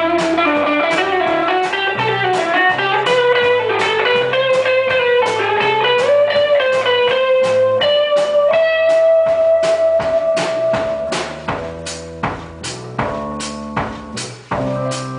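Live rock band playing an instrumental break: an electric guitar lead with bent, sliding notes over bass guitar and drum kit, holding one long note a little past the middle. After that the lead drops away and the drums and bass carry on in sharper, spaced-out hits.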